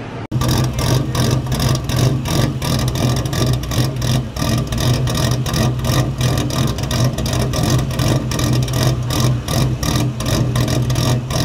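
Supercharged 4.6-litre DOHC V8 of a Terminator Mustang Cobra idling at the tailpipes with an uneven, loping beat. The lope comes from a vacuum leak: it sounds cammed, though the engine is not cammed.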